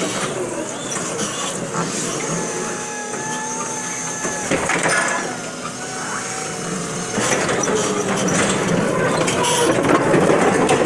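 Crown electric stand-up reach truck working at the racks: a steady motor whine over a busy mix of mechanical noise, with a sharp knock about four and a half seconds in, getting louder in the last few seconds as the truck passes close.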